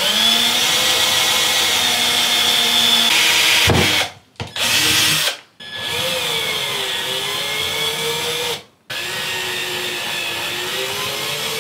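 Cordless drill/driver running in several runs with short pauses, boring into and fastening a mounting plate to the side panel of a bathroom vanity. Its whine sags in pitch partway through the third run, as if under load, then recovers.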